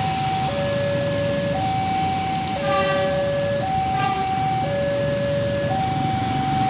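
Railway level-crossing warning siren sounding a two-tone hi-lo alternation, each tone about a second long, over a low traffic rumble. It is the warning that a train is approaching and the crossing gates are about to close.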